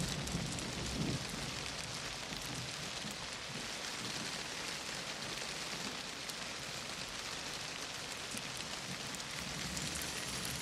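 Steady heavy rain falling, an even hiss without breaks.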